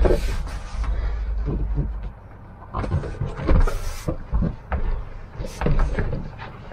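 Hands pressing and patting on new wood floorboards and knees shifting on them: scattered short knocks and clicks, with a low rumble in the first two seconds. The boards are being pressed down where they sit slightly raised against the van's side.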